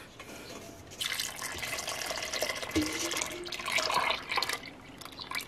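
Hot rhubarb water pouring from a stainless steel bowl into a pot of honey: a steady splashing pour that starts about a second in and stops shortly before the end.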